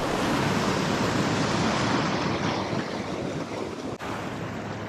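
Ocean surf washing against a rock ledge: a steady rushing wash, a little louder in the first half and easing about halfway through.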